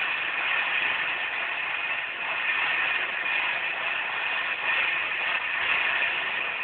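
A monster truck video playing through laptop speakers: a steady, noisy din of truck engines with little bass.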